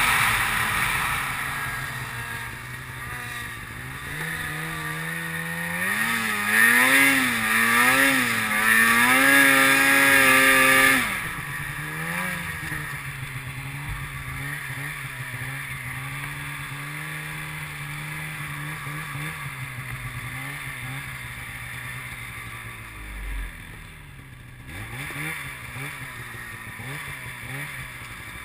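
Polaris snowmobile engine heard from on board as the sled is ridden: the engine note falls at first, then revs up and down several times. About eleven seconds in it drops abruptly to a steadier, lower running note, with a few short revs near the end.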